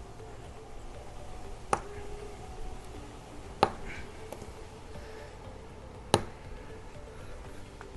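Mini pry bar worked against a nail stuck in a tyre tread: three sharp metallic clicks about two seconds apart, with a few fainter ticks between.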